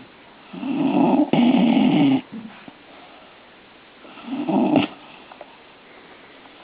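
A Griffon dog snoring while awake with her eyes open: two loud snoring breaths. The first lasts about a second and a half, briefly broken in the middle. The second is shorter and ends in a sharp click.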